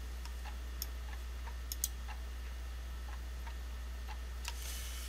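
Low steady hum with a few faint, scattered clicks.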